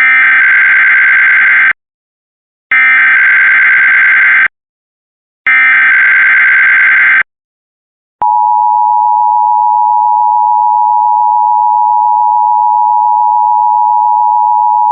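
Emergency Alert System SAME header: three identical bursts of warbling digital data tones, each under two seconds and about a second apart. About eight seconds in comes the steady two-tone EAS attention signal (853 and 960 Hz), opening a Required Monthly Test.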